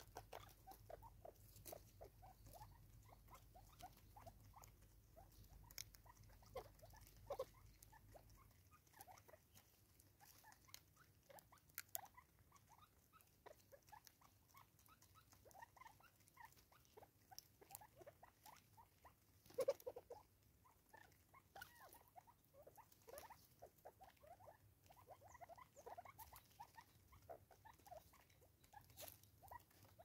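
Faint, irregular patter of several francolins pecking seed and grain off a tree stump: many small taps and clicks of beaks on wood, with one louder tap about twenty seconds in.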